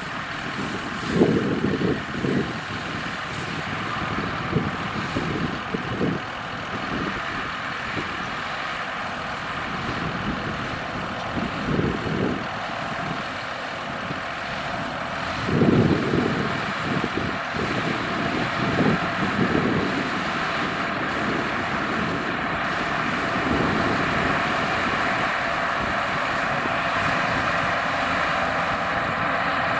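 Steyr CVT 6230 tractor and a Mascar Multiwrap 130 combined baler-wrapper running steadily in the field, with short low rumbles coming and going every few seconds.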